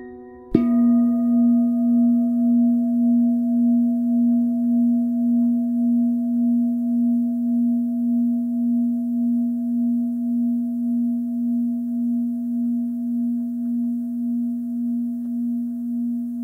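A singing bowl struck once about half a second in, then ringing with a long low hum that wavers in loudness and slowly fades.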